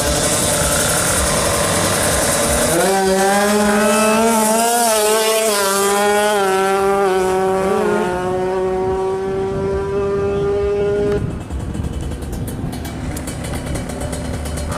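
Two-stroke drag-race motorcycle engine running at high, nearly steady revs. The note starts about three seconds in, wavers, drifts slightly lower, and cuts off sharply about eight seconds later.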